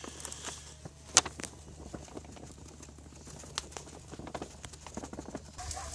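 Hardwood ash pouring from a paper grocery bag into a plastic bucket: a soft patter with rustling of the paper bag and scattered light clicks, the sharpest about a second in.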